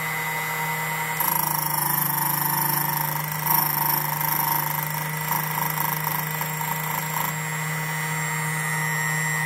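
Jensen Micro-Dial Key Crafter key code machine's motor running steadily while its cutter cuts a notch into a key blank, adding a higher-pitched cutting noise from about a second in until about seven seconds in.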